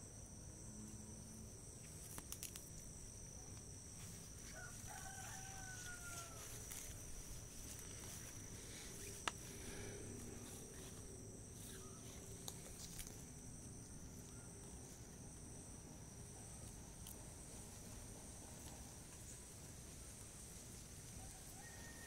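Faint outdoor ambience: a steady high-pitched insect drone over a low wind rumble, with one distant rooster crow about five seconds in and a single sharp click a little after nine seconds.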